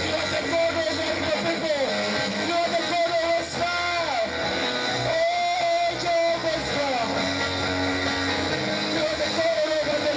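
Music with electric guitar, a melody line bending and sliding in pitch over sustained chords.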